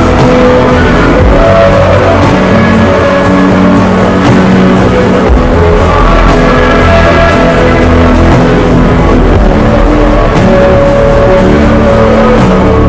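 Loud instrumental music with guitar and a steady beat, no singing.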